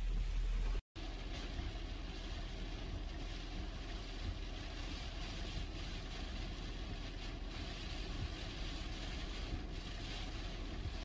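Hurricane wind and driving rain, a steady rush with deep wind rumble on the microphone. The sound cuts out for an instant about a second in, then the rush carries on.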